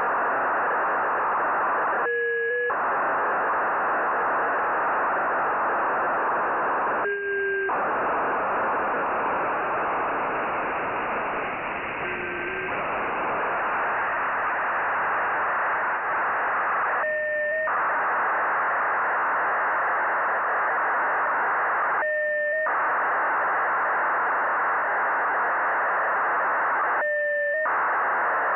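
Radio receiver hiss from a software-defined radio on the 2 m band in narrow FM, tuned to the Nayif-1 (EO-88) satellite downlink. About every five seconds the hiss cuts out for half a second and two tones sound as a burst of the satellite's signal comes through, six times. The pitch of the tones shifts from burst to burst.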